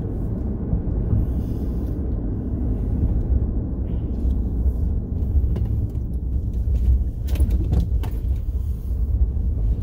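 Steady low rumble of a car being driven, with a few light clicks or rattles about seven to eight seconds in.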